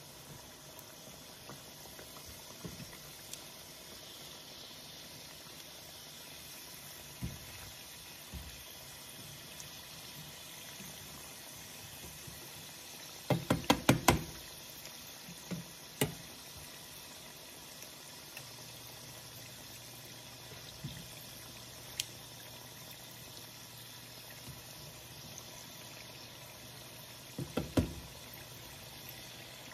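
Egg rolls and wontons sizzling steadily as they deep-fry in a pan of oil. Kitchen tongs knock against the pan in a quick run of clacks about halfway through, once or twice more after that, and again in a short run near the end.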